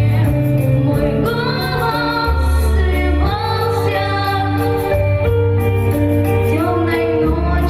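Russian Gypsy ensemble music: a steady bass line under a melody that glides between notes.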